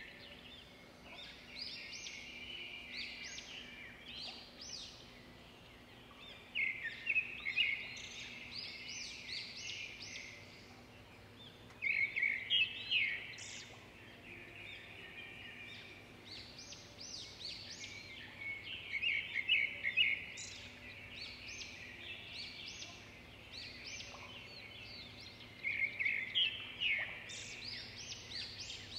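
Birds chirping and singing: a steady stream of high chirps, with louder bursts of rapid trilled notes about every six or seven seconds.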